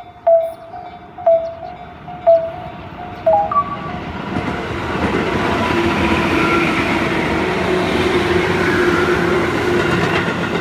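Japanese level-crossing bell ringing about once a second, then an electric commuter train passes close by from about four seconds in. Its running noise and steady motor hum build up and drown out the bell.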